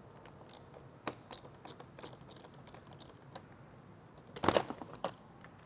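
Light plastic clicks and taps from a 2022 Toyota Corolla's front bumper cover and grille parts being handled, with a louder cluster of clacks about four and a half seconds in.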